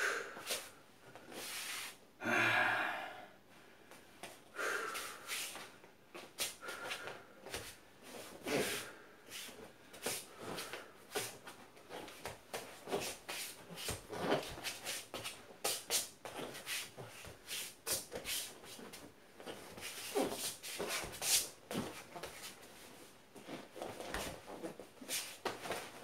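A man's sharp, forceful breaths and hissing mouth sounds, made in quick, irregular short bursts as he moves through qigong martial-arts forms. A longer voiced call comes about two and a half seconds in.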